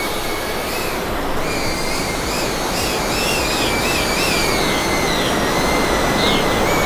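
Small FPV cinewhoop drone (iFlight ProTek25) in flight: its motors give a high whine that wavers and glides up and down in pitch as the throttle changes, over a steady rushing noise.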